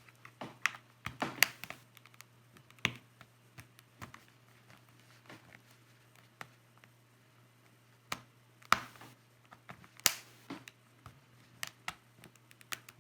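Irregular sharp plastic clicks and snaps as a pry tool works at the edge of a Logitech K750 solar keyboard's thin plastic case, trying to unclip it. There is a quieter stretch in the middle before the clicking picks up again.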